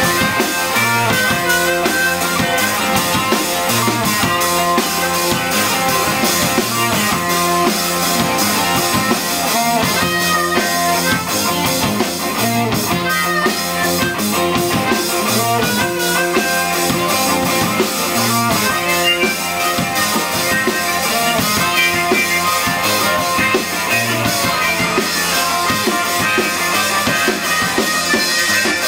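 Live blues-rock band playing an instrumental stretch: a drum kit keeps a heavy, steady beat under electric guitar and bass, and a harmonica is played cupped against the vocal microphone.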